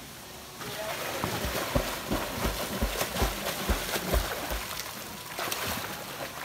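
Flowing water with splashing, and a run of low thumps about three a second for a few seconds.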